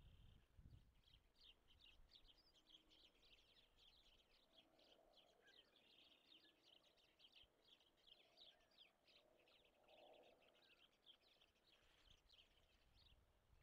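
Faint bird chirping: a long run of quick high chirps, about four a second, starting about a second in and stopping shortly before the end.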